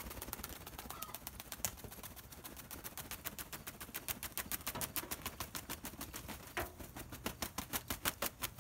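A freshly beheaded chicken flapping its wings, a fast run of feather beats about eight a second. These are death-throe nerve reflexes after the kill.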